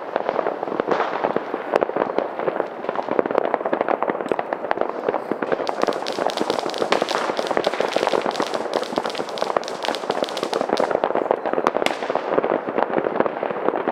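Many fireworks and firecrackers going off at once in a continuous barrage of bangs and pops, with a stretch of sharper, denser crackling lasting about five seconds midway.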